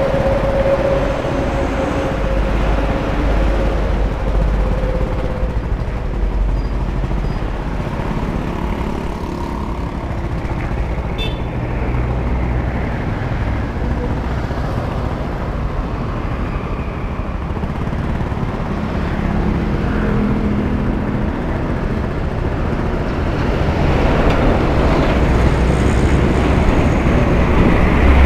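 Motor scooter running as it is ridden along a road, with other traffic going past; the traffic grows louder near the end as a truck passes close by.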